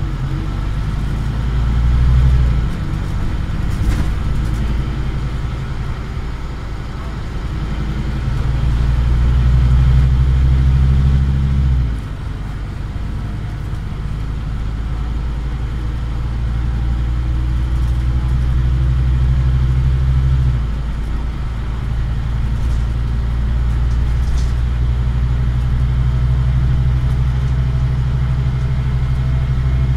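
Scania OmniCity bus engine working hard, heard from inside the passenger saloon as the bus drives along. The low engine note builds up and drops off sharply twice, about 12 and 21 seconds in.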